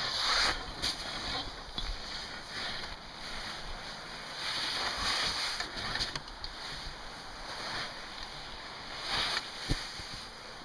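Hard-packed roof snow being cut by a MinnSNOWta Roof Razor roof rake and sliding off the roof in repeated hissing swishes, with a sharp click near the end.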